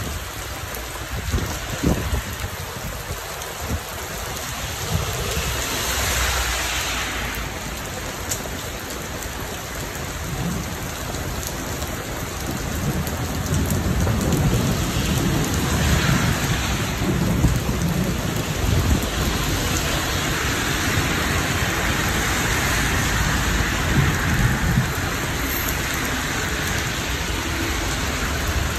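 Heavy rain pouring down on a street in a steady hiss, with low thunder rumbling through the middle of the stretch and again near the end.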